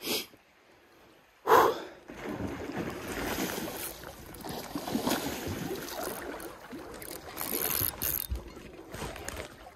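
A sudden bump about a second and a half in, then water sloshing and splashing in uneven strokes, as of someone wading through a shallow stream.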